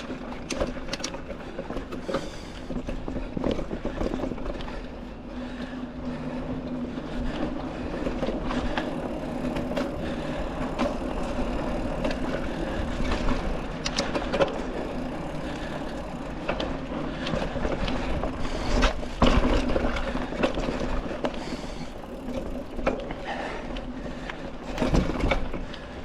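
Mountain bike being ridden on a dirt trail: the knobby tubeless tyres roll with a steady hum, and the bike's chain and frame rattle and knock over bumps and roots, with the loudest jolts about 19 and 25 seconds in.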